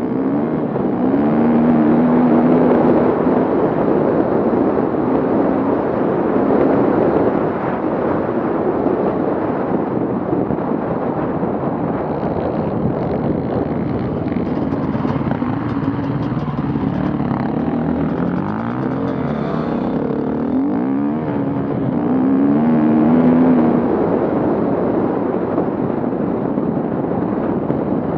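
Off-road vehicle engines running and revving, the engine note rising and falling, loudest around two seconds in and again near 23 seconds.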